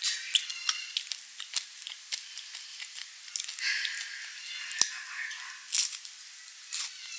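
Close-miked chewing of crunchy chocolate pillow cookies: a steady run of small crackles and wet mouth clicks, with a sharper click about five seconds in as the next pillow goes to the mouth on a metal spoon.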